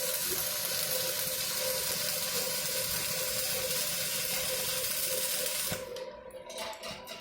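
Steady hiss of an electric welding arc at work, with a faint steady whine underneath. It cuts off abruptly about six seconds in, leaving a few short crackles.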